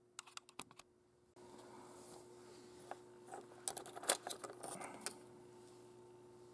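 Small plastic model parts being handled and fitted together by hand. There is a quick run of light clicks early on, then more clicking and rustling between about three and five seconds in, with the loudest click about four seconds in.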